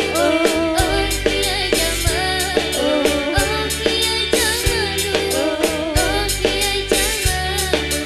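A woman singing live into a microphone with a wavering, ornamented melody, backed by a band with keyboard, bass and drums playing a steady beat.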